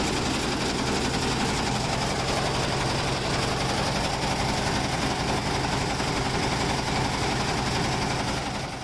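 Noisy air conditioner running with a steady, fast rattling vibration.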